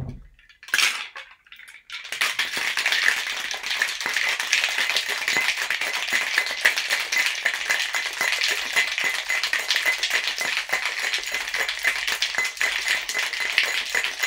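Ice rattling hard inside a Boston shaker, a steel tin sealed over a pint glass, being shaken vigorously. A single tap comes as the tin is seated on the glass, then a steady dense rattle starts about two seconds in.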